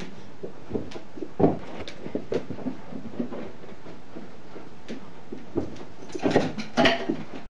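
Scattered light knocks and thumps over a steady hiss, with a stronger knock about a second and a half in and a quick cluster of louder bumps and rustling near the end.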